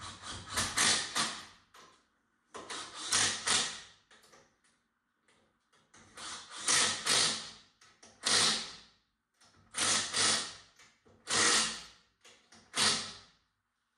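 Ratchet wrench clicking in repeated short bursts, about a second each with pauses between, as wheel lug nuts are run on and snugged up.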